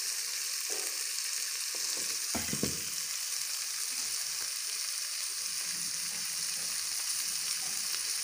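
Diced chicken and green capsicum sizzling in a wok as they are stirred with a wooden spatula: a steady high hiss, with one brief knock about two and a half seconds in.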